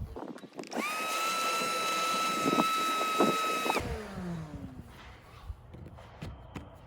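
Power cutting tool spinning up and cutting inside a PVC pipe, trimming it down. It runs with a steady high whine for about three seconds, with two knocks partway through, then cuts off and winds down in pitch.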